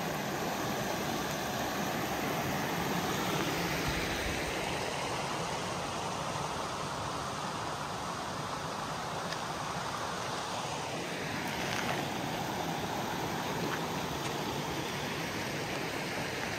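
River water rushing steadily, its tone shifting slowly partway through.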